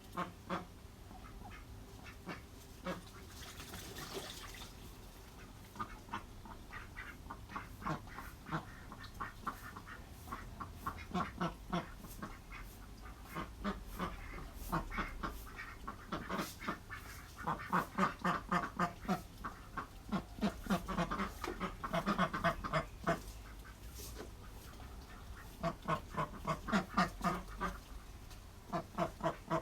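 Ducks quacking in several runs of rapid, chattering calls, the longest bouts in the second half.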